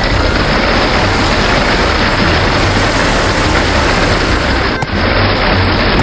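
Circular saw blade spinning and cutting into wooden dowels: a steady, loud, harsh grinding noise with a brief break about five seconds in.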